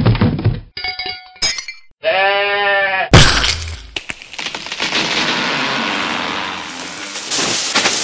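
Cartoon falling-down-stairs sound effect: a string of thumps and comic tones, a wavering pitched cry, then a loud crash about three seconds in, followed by several seconds of crashing and breaking that tails off and picks up again near the end.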